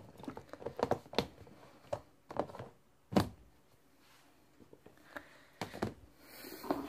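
Scattered light taps and knocks, a few seconds apart, with one louder knock about three seconds in.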